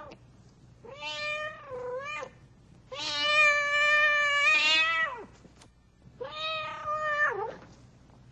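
Domestic cat meowing three times: a first meow with a dip in pitch, then a long, loud drawn-out meow of about two seconds, then a shorter meow that falls in pitch at the end.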